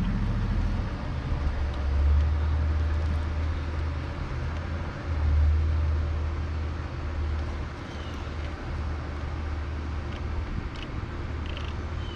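Redcat Ascent RC rock crawler driving slowly over rocks and dirt: its Hobbywing Quicrun Fusion motor and geared drivetrain running at crawl speed. A steady low rumble swells about two seconds in and again about five seconds in.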